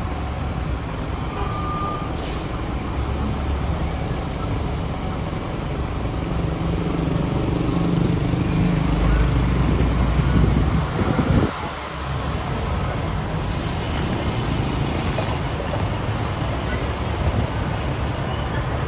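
Street traffic: a steady low rumble of idling and moving engines from a bus, trucks, cars and motorcycles, with a short hiss about two seconds in. The sound breaks off abruptly about eleven seconds in, then similar traffic rumble resumes.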